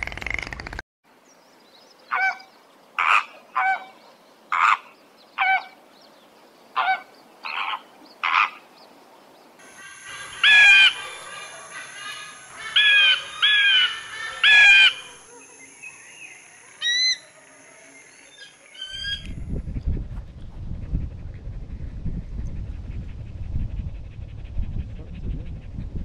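White-bellied sea eagle giving a series of about a dozen short, loud honking calls, roughly a second apart, some with a hooked rise and fall in pitch. A steady high-pitched whine sits behind the later calls. In the last several seconds a low noisy rumble of wind takes over.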